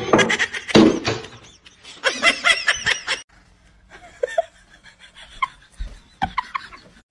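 A person laughing, with the loudest laughter from about two to three seconds in, followed by quieter scattered small sounds.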